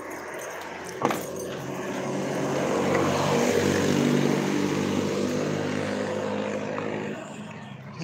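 A jeepney driving past, its diesel engine growing louder, peaking midway, then fading away. A sharp knock about a second in.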